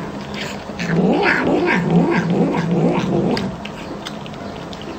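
Domestic cat growling and yowling over its food in a run of wavering, rising-and-falling calls, with faint smacking higher up. The calls begin about a second in and drop away after about three and a half seconds.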